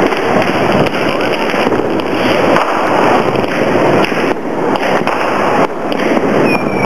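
Many fireworks going off at once: a continuous mass of bangs and crackling, with a falling whistle near the end.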